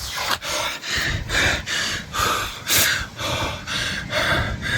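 A runner's heavy, fast breathing and gasping right after a hard all-out 10K, about two breaths a second, close to the microphone.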